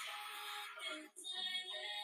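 Background music with singing, briefly dropping out just after a second in.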